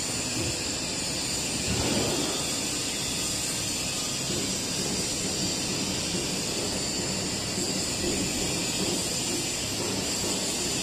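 W12-8x1500 CNC four-roll plate rolling machine running as its side support arm is raised: a steady machine hum with a constant hiss over it, swelling slightly about two seconds in.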